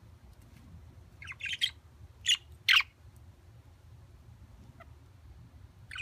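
Exhibition (English) budgerigar giving short, harsh chirps: a quick cluster a little over a second in, then two louder single chirps, with a faint one near the end.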